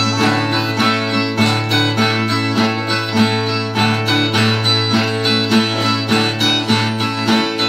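Brazilian viola, the ten-string folk guitar of the sertão, playing an instrumental interlude between sung verses: a repeated rhythmic strummed and plucked phrase over a steady low note.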